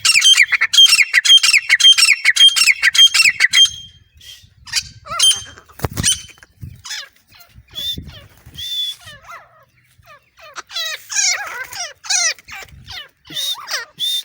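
Grey francolin (desi teetar) calling: a loud, fast run of shrill repeated notes for the first few seconds, then quieter scattered calls, with another quick run of calls past the middle.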